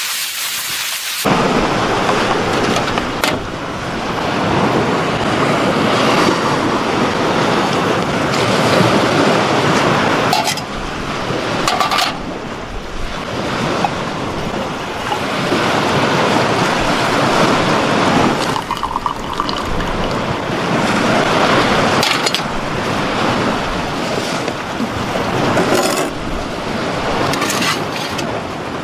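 Loud, gusting rush of wind buffeting the microphone, swelling and easing every few seconds.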